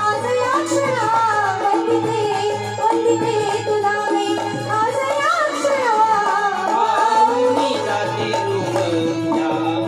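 Marathi folk song accompaniment: a hand drum keeping a steady rhythm under a winding, sliding melody over a held drone note.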